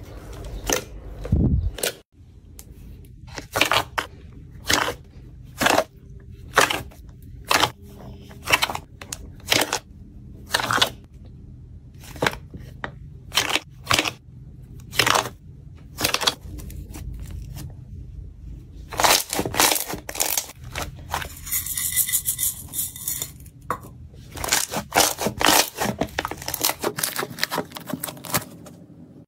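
Slime being squeezed and stretched by hand, giving a string of sharp pops and crackles, mostly about one a second, with a longer run of crackling about twenty seconds in.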